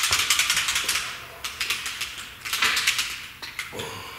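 Rapid scratching strokes of a mark being made on the security camera's housing parts, in several short runs with the loudest and longest in the first second. The mark is a clocking mark so the parts go back together in the same orientation.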